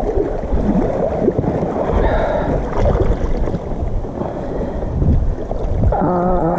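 Wind buffeting the microphone and water sloshing around an inflatable float tube while a hooked pike pulls on the line. A short wavering vocal sound from the angler near the end.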